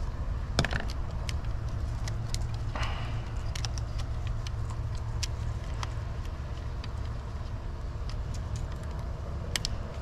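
Small sharp clicks and metallic taps of a screwdriver and a single-pole light switch being handled while its two wires are swapped on the terminals, over a steady low rumble.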